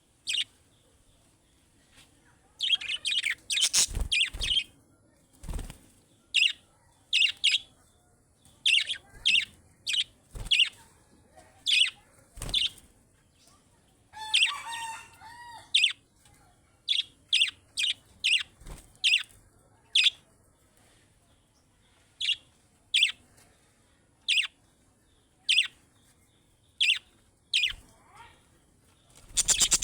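Budgerigars chirping in short, high calls, roughly one every second or so, with a burst of rapid chirps a few seconds in and a longer warbling chatter around the middle. A few soft thumps are scattered among the calls.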